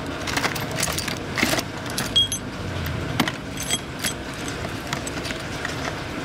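Loose steel nuts, bolts and scrap parts clinking and rattling as a hand rummages through a bag of hardware, with a length of rusty roller chain rattling as it is pulled out. The sharp metallic clinks are thickest in the first four seconds and thin out after.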